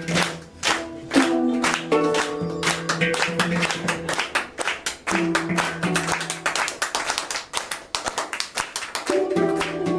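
Live acoustic improvisation on handpan, balalaika, kanjira frame drum and castanets: a fast, dense patter of clicking percussion under short pitched notes. About six seconds in the notes drop out, leaving only the clicking percussion, and they come back strongly near the end.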